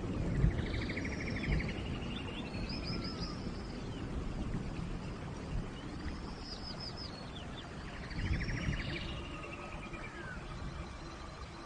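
A songbird singing the same phrase twice, about six seconds apart: whistled notes, quick falling notes and a fast buzzy trill. Beneath it is a low, steady rumbling noise that slowly fades.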